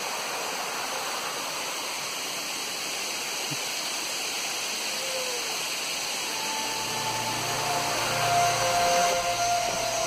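Falling water splashing over granite rocks into a pool, a steady hiss. Background music with held notes comes in about seven seconds in.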